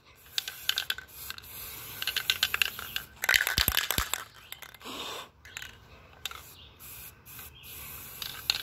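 Aerosol spray paint can hissing in short sprays, with a rattling shake of the can about three seconds in. The can is nearly empty.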